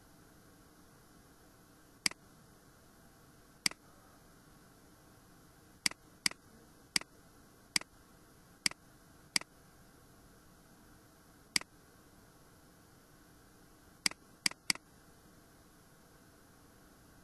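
Computer mouse button clicking about a dozen times at irregular intervals, with a quick run of three near the end. A faint steady hiss lies underneath.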